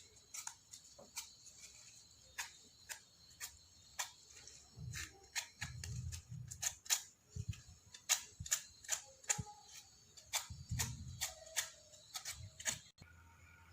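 Sandpaper rubbing away excess decoupage tissue at the edge of a small round MDF magnet base, heard as a run of short, irregular strokes. A few soft low knocks come in the middle, as the piece is handled.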